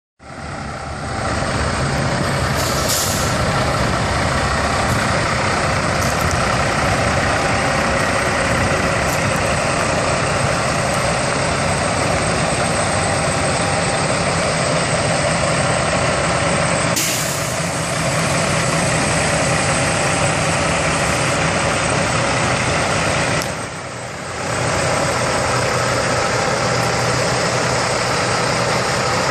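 Heavy water truck's 500 hp diesel engine idling steadily under a constant hiss, with a brief dip in level about three quarters of the way through.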